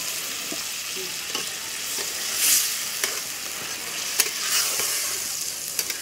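A steel ladle stirring watery matar paneer gravy in an iron kadhai as it sizzles over a wood fire, with a few sharp clicks and scrapes of the ladle against the pan.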